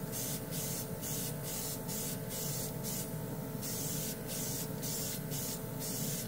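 Small portable airbrush compressor running steadily while the gravity-feed airbrush sprays in short hissing bursts, about two a second, with a longer pause about three seconds in. The compressor runs constantly rather than cutting out.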